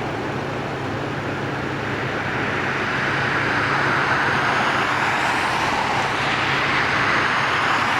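Road noise from inside a moving vehicle: a steady low engine hum under tyre and wind rush, which swells from about halfway through and stays louder.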